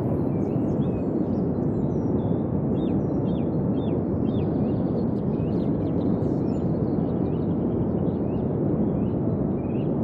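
Steady rushing of sea water surging over rocks, with many faint, short, high bird chirps scattered throughout.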